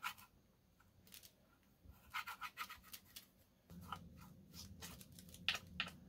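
Faint scratchy strokes of a small paintbrush on a wooden birdhouse panel, coming in a few quick groups.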